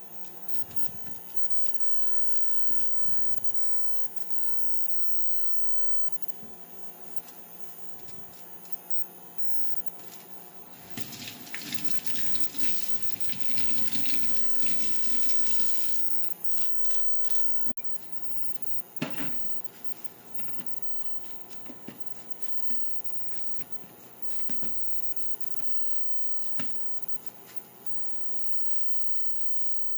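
Kitchen tap running for about five seconds, starting about a third of the way in, followed by a few light knocks and clicks. A steady low hum runs underneath.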